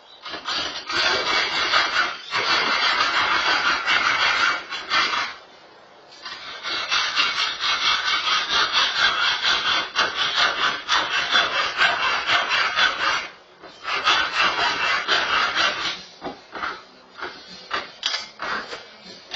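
Screw grinding as it is driven into a wall, in three long runs and then a series of short bursts near the end. The screw is meeting something hard behind the wall where a wood stud was expected.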